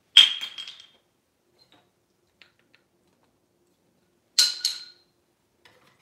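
Metal cookware clanking: a quick run of knocks with a brief ringing tone just after the start, then two more ringing clanks about four and a half seconds in.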